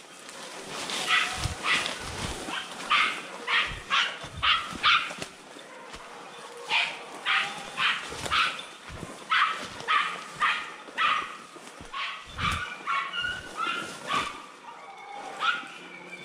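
Jagdterriers barking in quick runs of sharp barks, often two or three a second, broken by short pauses: hunting dogs giving tongue during a wild-boar drive.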